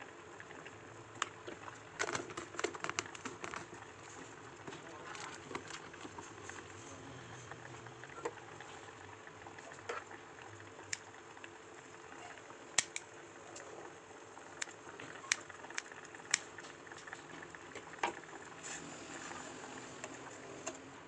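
Home kitchen cooking sounds: a steady hiss of food boiling or cooking in a pot, with scattered sharp clicks and knocks of utensils and cookware, busiest around two seconds in and again in the second half.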